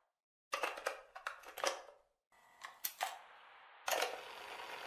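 A quick run of sharp mechanical clicks and clacks, a few more clicks after a short pause, then a steady hiss that comes in about four seconds in.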